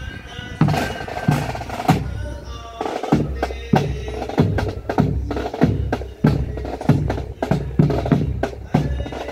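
Pipe band drum corps playing a steady marching beat: snare drums rattling and rolling over a bass drum that strikes about every two thirds of a second. The bagpipes sound thinly at first and drop out about three seconds in, leaving the drums alone.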